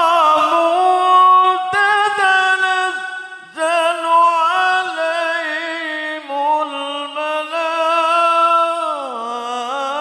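A man reciting the Quran in melodic tilawah style, holding long ornamented notes in one voice. There is a brief pause for breath about three and a half seconds in, and a downward slide in pitch near the end.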